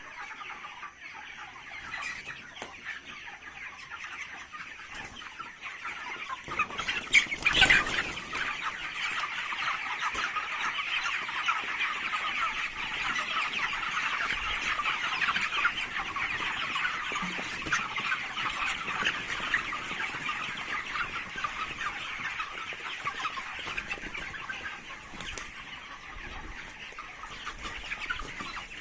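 A large flock of broiler chickens clucking and cheeping continuously, many birds calling over one another. A brief louder burst comes about seven and a half seconds in.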